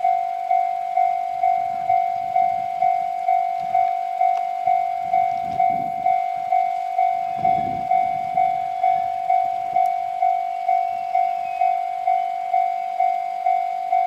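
Japanese level-crossing warning bell ringing steadily at about two dings a second, with the low rumble of a KiHa 100-series diesel railcar approaching on the rails, loudest about halfway through.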